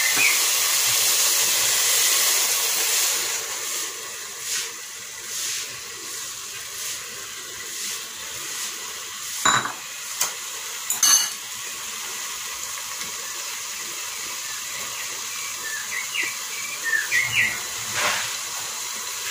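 Beaten eggs sizzling as they go into hot tomato sauce in an aluminium pot: a loud hiss at first that settles to a quieter steady sizzle. A couple of sharp clinks come about halfway through.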